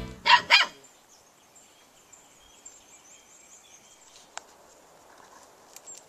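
A golden retriever sitting in a tub of water gives two short vocal sounds, his 'singing', in the first second. After that there is only a faint outdoor background with light bird chirps and a single click about four seconds in.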